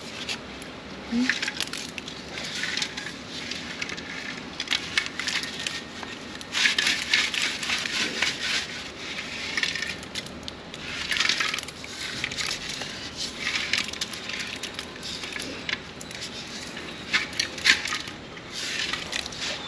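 Hard white mineral scale being scraped and pulled out of a storage water heater's tank, crunching and scratching in irregular bursts. The scale is salt deposited by hard, salty borewell water.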